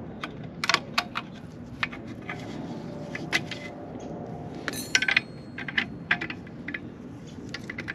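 Metal hand tools and exhaust hardware clinking and clicking as wrenches are picked up and a metal flange ring is worked onto the end of a motorcycle exhaust pipe; one clink a little before the middle rings briefly.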